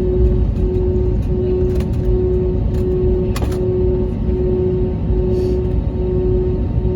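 Airbus A320neo cabin noise: a steady low rumble with a held hum that drops out briefly about every 0.7 s, and a few faint clicks.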